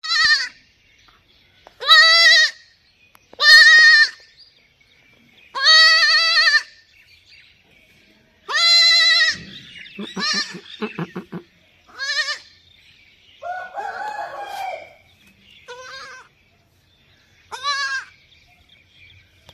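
A baby goat bleating over and over: about eight short, high-pitched calls with pauses of one to three seconds between them. Around ten seconds in there is a rougher, stuttering call, and around fourteen seconds a lower, noisier one.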